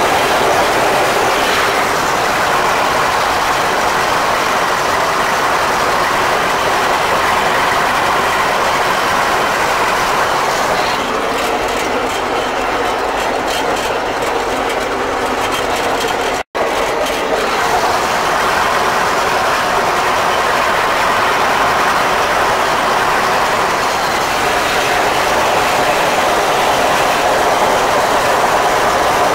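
Fortschritt E303 self-propelled mower running under load while cutting hay, heard from inside its cab: a steady, loud din of engine and mowing header. It drops out for an instant about halfway through.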